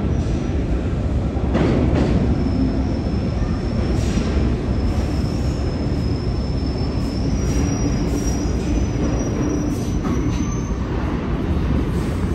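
Bombardier R62A subway train running on the rails with a steady rumble and a few sharp clicks. A thin, high wheel squeal starts about two seconds in, rises slightly in pitch and cuts off near the end.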